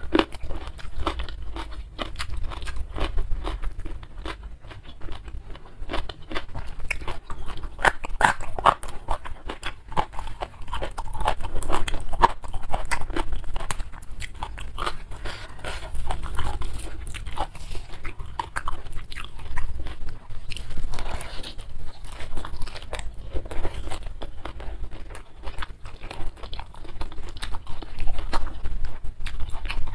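Close-miked chewing and crunching, irregular and continuous: a person eating handfuls of rice with sambal and raw kenikir leaves.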